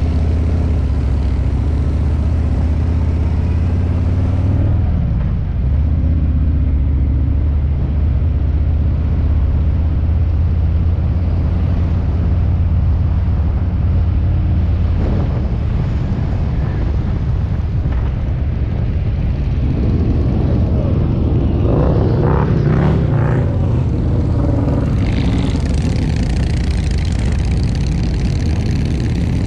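Motorcycle engine running while riding at street speed, a steady low drone with road and wind noise; around twenty seconds in the engine note shifts up and down for a few seconds.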